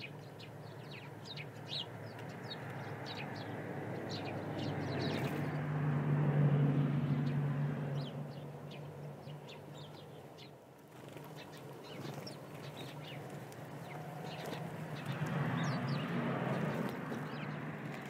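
Small birds chirping in quick short notes, over a low rushing noise that swells and fades twice.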